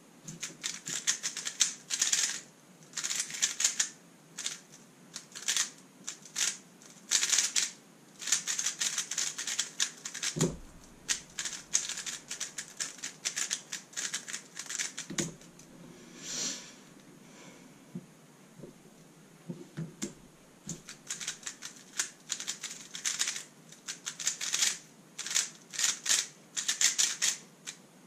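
Thunderclap v3 M 3x3 speedcube being turned fast: rapid runs of clattering layer turns in bursts, broken by short pauses. Two dull thumps come at about ten and fifteen seconds in.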